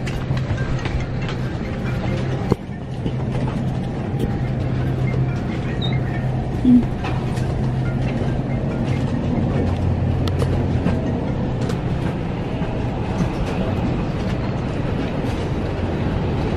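Steady hum of an Airbus A321 cabin's air system with the aircraft parked at the gate, under scattered clicks and knocks from passengers filing down the aisle. A sharp knock comes about two and a half seconds in.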